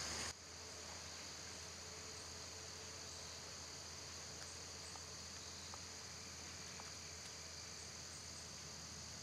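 Faint, steady chorus of crickets trilling in the woods, with a few tiny faint clicks.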